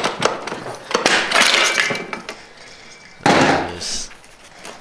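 Metal clinks and scraping from a screwdriver prying at the band and the steel input drum assembly of a 4L60E automatic transmission being worked out of the case, the band being fused to the drum. Sharp clicks at first, a stretch of dense scraping about a second in, and a louder clatter about three seconds in.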